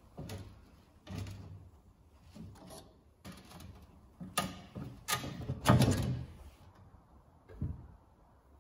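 Pincers and pliers gripping and working a rusted hinge on an antique cast-iron stove's top, giving a string of short metal scrapes and clinks, the loudest a little before six seconds in. A short low knock follows near the end as the top is handled.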